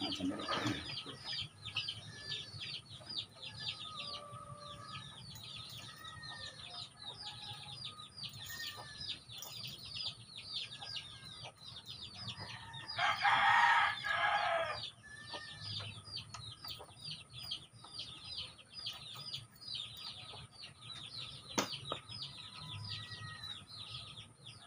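Chickens: chicks peep constantly in quick, high, falling chirps, and a rooster crows once, about 13 seconds in, for roughly two seconds, the loudest sound. A single sharp click comes near the end.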